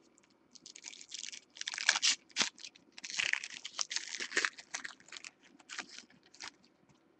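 Foil wrapper of a baseball card pack being torn open and crinkled by hand: a run of irregular crackles from about half a second in, trailing off near the end.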